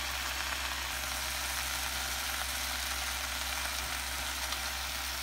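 Bacon grease, vinegar and water sizzling steadily on the hot griddle plate of an electric smokeless grill, the liquid cooking down fast. The grill's fan hums low and steady underneath.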